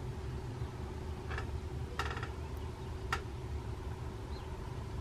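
A few short, high-pitched animal calls over a steady low hum. The longest, about two seconds in, lasts about a quarter of a second; briefer chirps come shortly before and after it.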